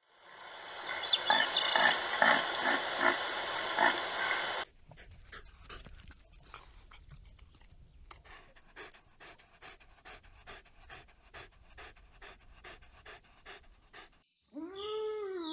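A loud noisy stretch with about three pulses a second, which cuts off sharply; then a German shepherd panting with its tongue out, quieter, about two and a half breaths a second; near the end a cow starts mooing.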